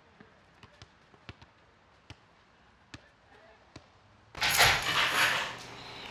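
Basketballs bouncing on an outdoor court, heard as scattered sharp knocks. About four seconds in, a loud rustling clatter lasts a second and a half, then gives way to a low steady hum.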